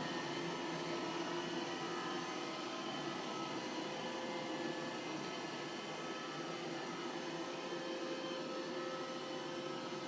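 iRobot Roomba j7 robot vacuum running while it cleans, a steady motor noise with a few held tones.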